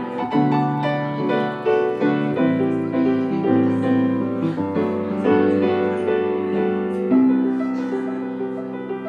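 Grand piano played solo: a run of chords and melody notes struck in turn, each chord left ringing into the next.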